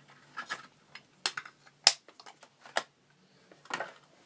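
Small objects being handled by hand: a series of light clicks and knocks with some rustling, the sharpest knock about two seconds in.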